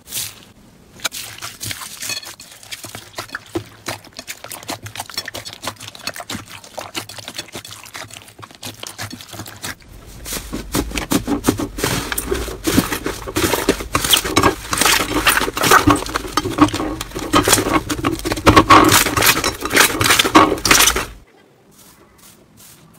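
Slime being squished and worked by hand, giving many quick wet clicks, squelches and pops. It grows louder about halfway through and stops about two seconds before the end.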